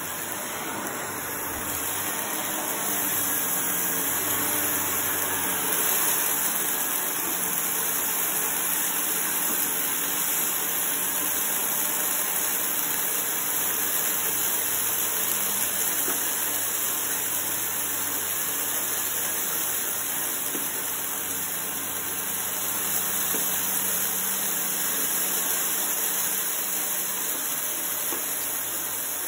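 Shark upright vacuum cleaner running steadily over carpet, sucking up small green granules and fluff. Its level rises and falls a little.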